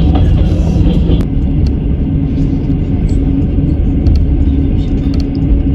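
Train running on rails: a loud, steady rumble of the wheels, with a steady hum and scattered light clicks over it.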